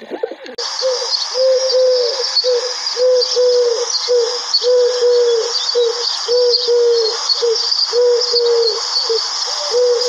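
Eurasian collared dove cooing: a run of short, repeated coos, about two notes a second in small groups, starting about half a second in. A steady high hiss runs behind it.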